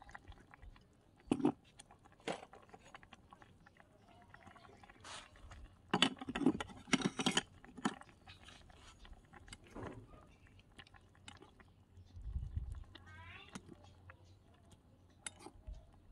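Small metal spoon clinking and scraping against a miniature iron wok as soup is stirred and ladled out, in scattered taps with a busier run of knocks about six to seven seconds in.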